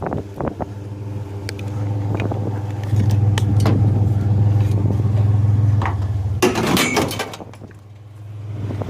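Vehicle engine running as it drives, a steady low hum that grows louder for a few seconds past the middle, then a short noisy rush about two-thirds in and a drop as it eases off, with light clicks and rattles throughout.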